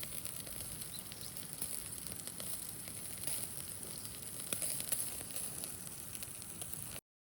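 Food sizzling on a grill, a steady hiss with small scattered pops and crackles, cutting off abruptly near the end.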